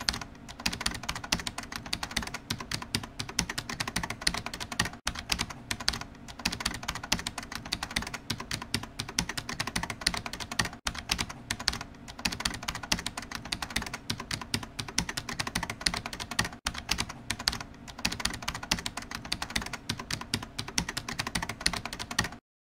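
Fast, continuous clicking of computer-keyboard typing, cutting off suddenly just before the end.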